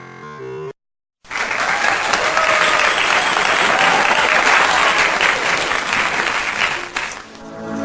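A crowd applauding and cheering for about six seconds, cutting in suddenly after a brief silence and fading out near the end, following a moment of music at the start.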